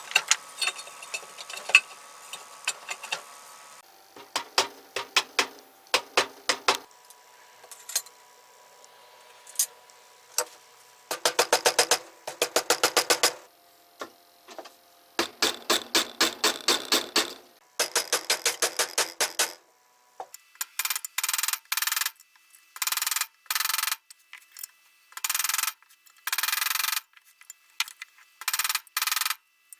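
Sped-up hand work on metal tool parts: quick clusters of sharp metallic taps and clicks, some ringing briefly. About two-thirds of the way in it changes to a run of short, evenly repeated rasping strokes.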